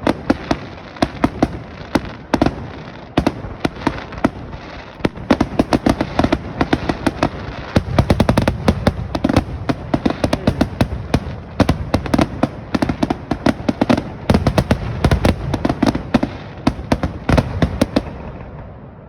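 Fireworks display: a dense run of aerial shell bursts and crackling reports, many sharp bangs a second over a low rumble, thinning out near the end.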